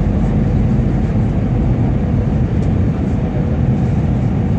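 Airliner cabin noise in flight on approach: a steady low rumble of the engines and the air rushing past the fuselage, with a faint steady hum.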